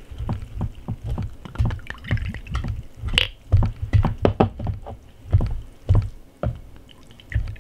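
Soju poured from a green glass bottle into a small shot glass, mixed with a steady run of sharp knocks and clicks from handling bottle, glass and tableware.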